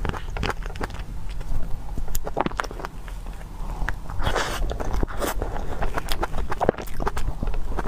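Close-miked eating of a whipped-cream cupcake: wet mouth smacks and chewing clicks, with a louder, noisier bite about four seconds in, over a steady low hum.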